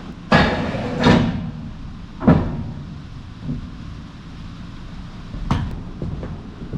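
A few sharp knocks and clunks, the loudest about two seconds in and another near the end, over a steady low rumble.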